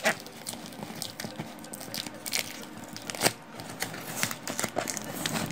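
Cardboard box being forced open by hand: packing tape and cardboard tearing and crackling in irregular snaps, the loudest crack a little past halfway.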